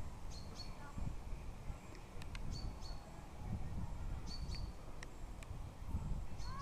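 A small bird repeating a short, high double chirp about every two seconds over a low outdoor rumble, with a few faint ticks.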